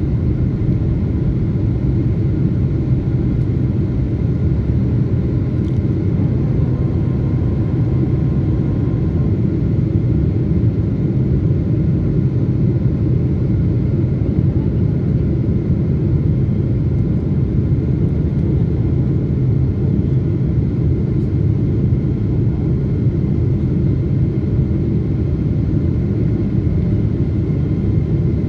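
Steady, loud rumble of a jet airliner heard from inside the cabin: turbofan engines and airflow during the descent on approach, with a few faint steady whining tones above the low roar.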